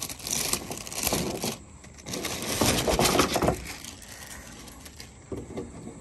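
Plastic packaging bag crinkling as it is opened and a folded mesh sunshade with bungee cords is pulled out, in two bursts of rustling, then quieter handling near the end.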